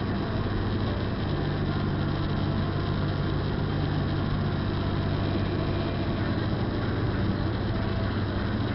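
Steady in-cabin road noise of a car driving at speed on a rain-soaked highway: a low engine hum under the hiss of tyres and spray on wet asphalt.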